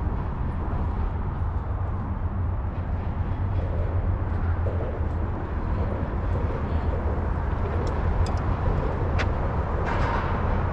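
Steady low rumble of outdoor background noise, with a few faint clicks about eight to nine seconds in.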